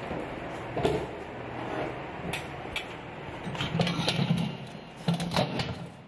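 Detachable stainless-steel tank of an industrial vacuum cleaner being pulled out on its wheeled trolley: a series of metal clanks and knocks, the loudest about a second in and a cluster around four to five seconds in.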